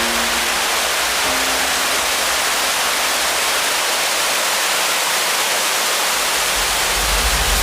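Rushing mountain stream water, a loud steady hiss with no let-up.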